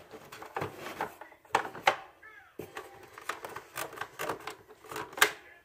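A plastic toy pinball game being handled, with its flipper buttons pressed: irregular sharp plastic clicks and knocks, the loudest a little past a second in and again near the end.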